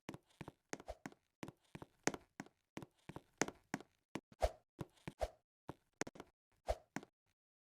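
Hand percussion struck in a quick rhythm: sharp taps about three or four a second, with a few deeper thumps among them and a short break near the end.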